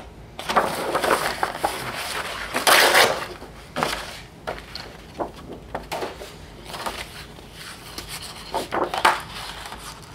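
Sheets of scrapbook paper rustling and flapping as they are leafed through and lifted by hand, in a series of short, irregular bursts.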